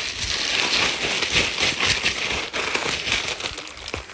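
Clear plastic bags crinkling and crackling as a bundle of bagged pop-it silicone phone cases is handled, a dense run of small crackles throughout.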